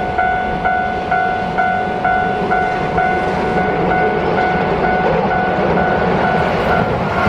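Railway level-crossing alarm ringing an even ding a little over twice a second, over the rising rumble of an approaching Keihan electric train; the dings die away near the end as the train noise swells.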